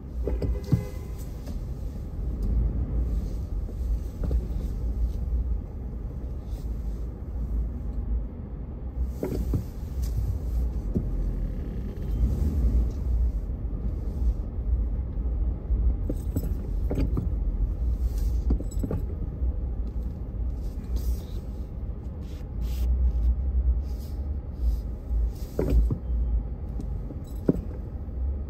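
Low, steady rumble of a car's cabin as it creeps forward in stop-and-go traffic, with a few scattered light knocks.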